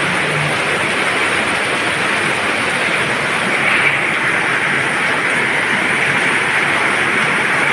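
Steady heavy rain, an even hiss. A low hum fades out in the first half second.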